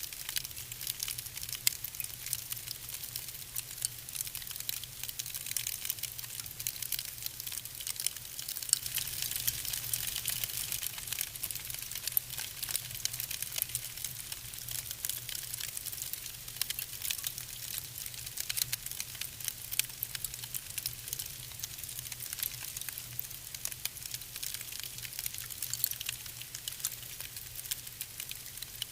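Wood fire burning in a fireplace with steady, dense crackling and hiss, a little busier around the middle.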